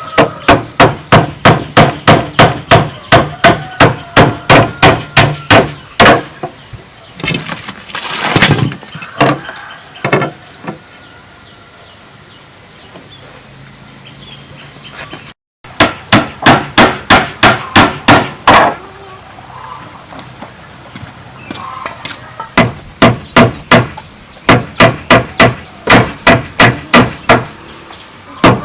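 Hammer blows on bamboo, struck steadily about three times a second, in runs of several seconds with pauses between. There is a short rasping noise about eight seconds in.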